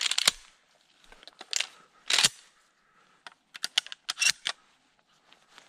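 Pump-action shotgun being loaded: sharp metallic clicks and snaps as shotshells are pushed into the tube magazine, irregularly spaced, with a quick run of clicks in the second half.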